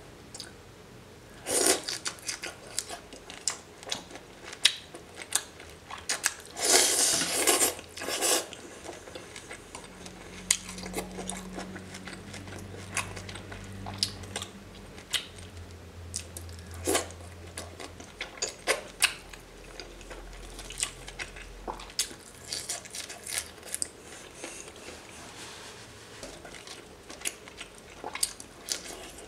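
Close-miked eating sounds: shell-on shrimp and raw seafood being handled, dipped in sauce and chewed, giving irregular wet clicks and crackles. There are two louder, denser crunchy bursts in the first third.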